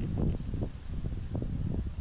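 Wind buffeting the microphone: an irregular low rumble with uneven gusty surges.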